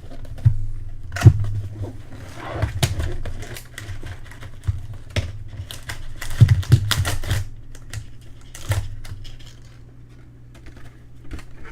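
Prizm basketball card packs and cards being handled and opened: irregular clicks, taps and crinkly rustles, loudest about six to seven seconds in, over a steady low hum.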